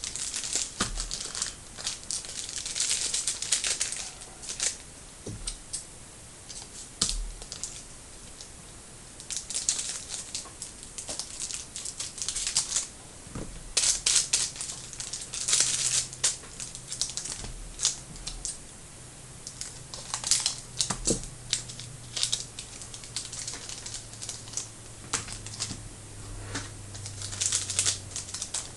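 Trading cards and their pack wrappers being handled: irregular crinkling and light clicks of cards being shuffled and laid down, in bursts.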